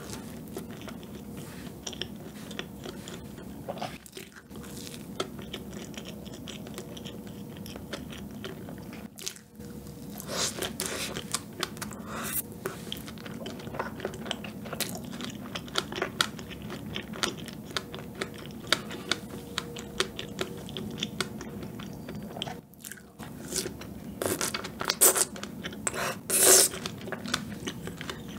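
Close-miked chewing of a big mouthful of chocolate cream cake with fresh strawberry, with many small mouth clicks and a few louder bursts near the end.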